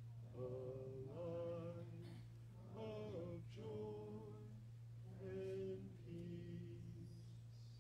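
A voice singing a slow hymn unaccompanied, in phrases of long held notes, over a steady low electrical hum.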